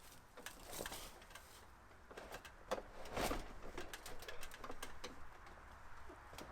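Faint scattered knocks and scrapes of a metal chimney pipe section being handled and pushed into place, with a louder scraping rustle about three seconds in.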